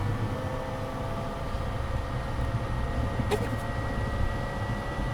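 Steady low engine and road rumble of a vehicle driving, heard from inside the cab, with a faint steady whine over it and a single small click about three seconds in.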